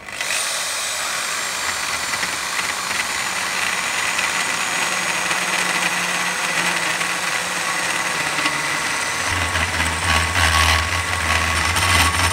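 Electric hand drill fitted with a milling cutter, running and cutting into the aluminium crankcase to open the seat for the cylinder: a steady high whine over grinding noise, with a deeper hum joining about nine seconds in.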